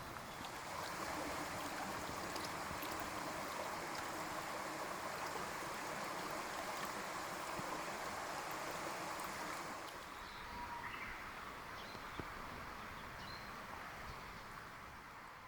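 Steady rush of falling water from a spring-fed waterfall, where groundwater emerges from the rock and pours down. It eases a little about two-thirds of the way through, and a few faint high chirps come in near the end.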